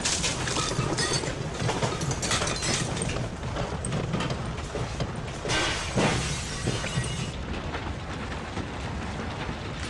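Earthquake sound effect: a continuous low rumble with things rattling and clattering and bursts of crashing. The biggest burst comes about five and a half seconds in, and the rumble settles a little after it.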